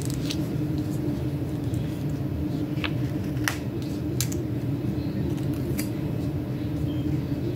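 Steady low hum throughout, with a handful of short clicks and taps from tweezers and paper as a small sticker is lined up and pressed onto a planner page.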